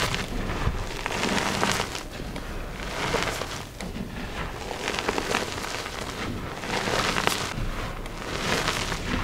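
Gym chalk being crushed and crumbled, a dusty crackling crunch that swells in repeated squeezes about every one and a half to two seconds.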